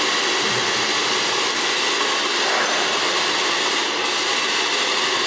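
A steady, loud hiss of noise like static, with no rhythm or breaks.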